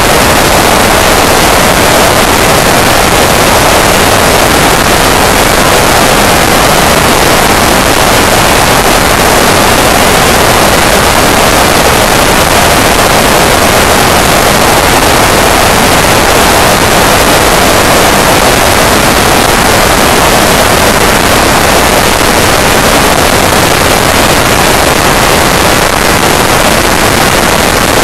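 Loud, steady wind roar on the microphone of a camera riding on a Honda Deauville NT650V motorcycle at motorway speed, with no engine note standing out above the rush.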